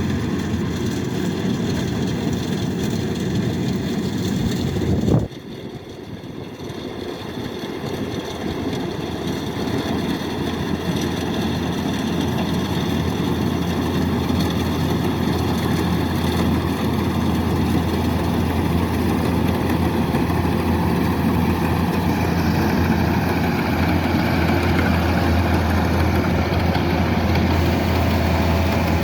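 Diesel engine of a Kubota DC-108X combine harvester running steadily under harvesting load. About five seconds in there is a sharp click and the sound drops suddenly, then it grows steadily louder again over the next several seconds.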